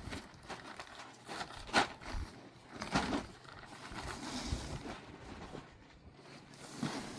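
Scattered knocks and rustling from handling, with two sharper knocks about two and three seconds in.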